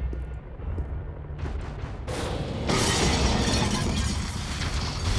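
Action-film sound effects: a low rumble, then about two seconds in a loud, continuous crashing noise that runs on.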